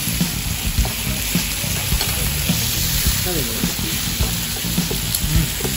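Pork belly sizzling steadily on a tabletop barbecue grill, with occasional light knocks.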